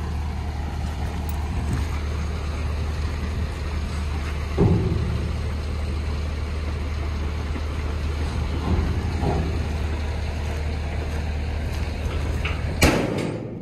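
KamAZ dump truck's diesel engine running steadily with its tipper body raised, just after tipping a load of broken asphalt and concrete. There is a knock about a third of the way in, and near the end a loud bang, after which the engine sound falls away.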